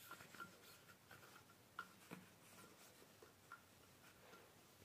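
Near silence, with a few faint clicks and light rubbing as shotgun parts are handled during cleaning.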